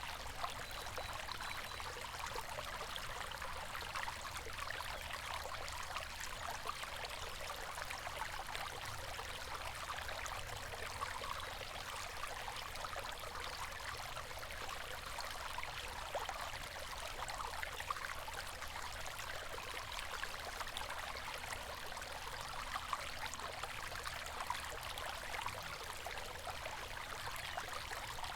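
River water flowing steadily over rocks, a constant rushing and babbling.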